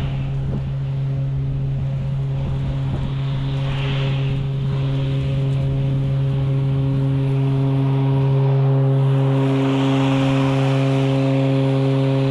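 Toro Revolution GrandStand 48-inch battery-electric stand-on mower running with its blades engaged: a steady electric hum with a hiss of cutting over it, getting louder as it comes close.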